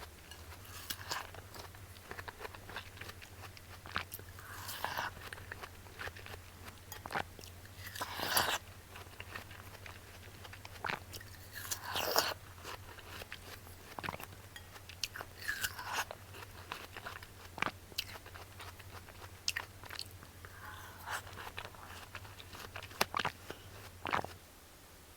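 Watermelon bitten and chewed close to the microphone: a crunch every few seconds, about six in all, with small wet clicks of chewing between them. A low steady hum runs underneath and stops near the end.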